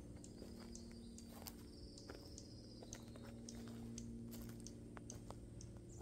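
Footsteps through dry undergrowth on a forest floor: irregular crackles and snaps of twigs and leaves underfoot.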